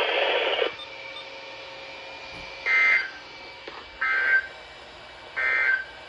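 Weather radio receiver sounding the end-of-message code of a SAME (Specific Area Message Encoding) alert broadcast: three short, raspy digital data bursts a little over a second apart. Before them, a hiss of static cuts off under a second in.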